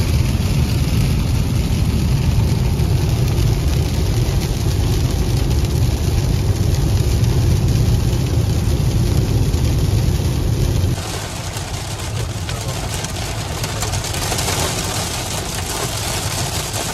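Road and engine noise inside a car driving at motorway speed on a wet road: a steady deep rumble with tyre hiss. About eleven seconds in it changes abruptly to a lighter rumble with more hiss from rain and spray on the windscreen.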